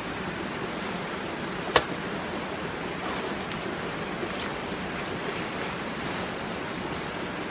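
Steady rush of a mountain stream or waterfall. A single sharp click or knock comes about two seconds in.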